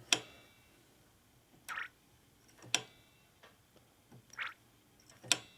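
Hydraulic brake being bled: three sharp metallic clicks about two and a half seconds apart, each followed by a short gurgling hiss of air and brake fluid forced through the bleeder. The gurgle is the sign of air still in the brake line.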